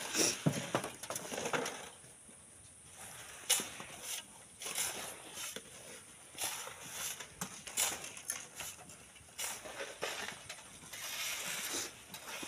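Digging in wet sand and stones: irregular scraping, crunching strokes with sharp knocks, a few each second, with a longer run of scraping near the end.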